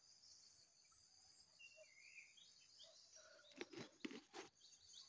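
Near silence: a faint steady high insect buzz, a couple of short bird chirps about halfway through, and a few soft rustles and clicks near the end.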